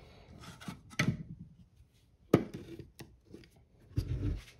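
Light clicks and knocks of small carburetor linkage parts being handled and fitted: a few separate taps, the sharpest about halfway through.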